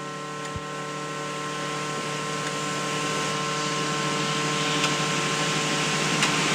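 A synthetic voice imitating a tower clock bell's lingering hum: a steady chord of several tones under a hiss that grows gradually louder.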